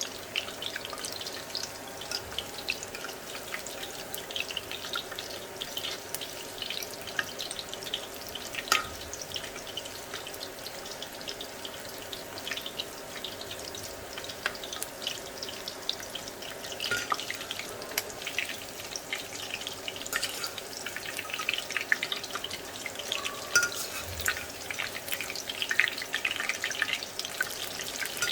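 Chicken keema pakoras deep-frying in hot oil: a steady sizzle full of small crackles and pops.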